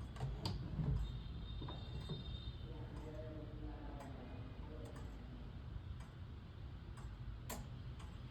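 German Mauthe longcase clock ticking, with a soft low knock about a second in.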